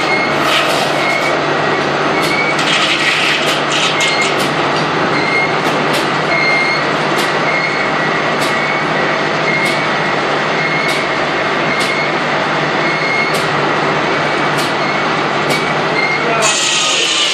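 Steam-powered sawmill machinery running steadily, with a regular clicking beat about once a second. A brighter hiss comes in near the end.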